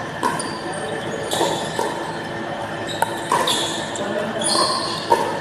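Pickleball paddles striking a hollow plastic ball in a rally, several sharp pops a second or more apart, echoing in a large gym hall.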